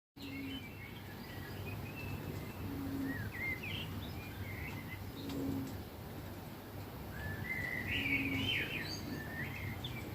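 A low, steady 'oooo' note about half a second long, repeated about every two and a half seconds: an unidentified call, taken for a bird, that is hard to locate and seems to come from everywhere. Smaller birds chirp higher up between the notes.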